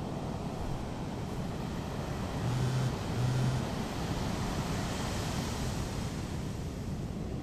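Steady wind and surf noise, with a Samsung mobile phone vibrating in two short buzzes about two and a half seconds in: the alert for an incoming text message.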